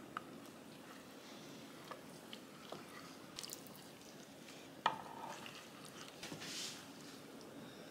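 Faint wet handling of raw beef short-rib slices being laid and pressed down into marinade with onions in a stainless steel tray, with scattered light clicks and one sharper click about five seconds in.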